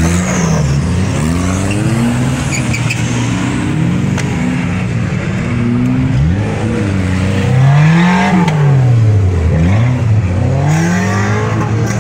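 Off-road rig's engine revving hard in repeated throttle bursts under load, its pitch rising and falling again and again, with the longest sweeps in the second half.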